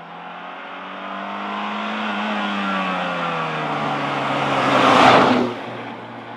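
Early Saab 9000 T16 with its turbocharged 16-valve four-cylinder engine driving up and passing close by. The car is loudest about five seconds in, the engine note dropping in pitch as it goes past, then it fades away.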